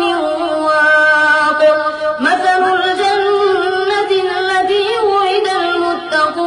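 Melodic Quran recitation by a single voice, holding long drawn-out notes with ornamented wavering, stepping up in pitch about two seconds in.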